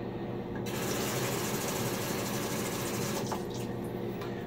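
Shaving brush being swirled briskly against a bowl to build lather: a rapid scratchy swishing that starts just under a second in and stops about three seconds in.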